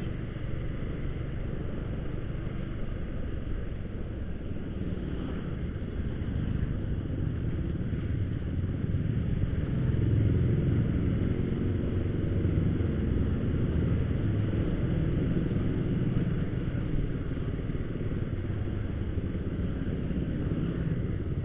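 Honda motorcycle engine running steadily beneath the rider, with road and wind noise.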